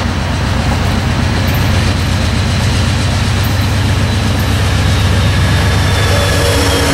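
Amtrak GE P42DC diesel locomotive approaching at speed with its train, a steady low engine rumble and the rush of wheels on rail building as it nears. Near the end a faint high whine drops in pitch as the locomotive draws level.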